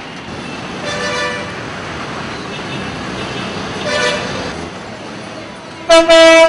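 Vehicle horns sounding over steady road traffic: two shorter, fainter honks about a second in and about four seconds in, then a loud horn blast lasting over half a second near the end.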